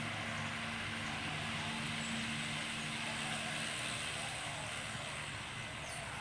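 A motor vehicle running steadily, a low engine hum under an even road-noise hiss.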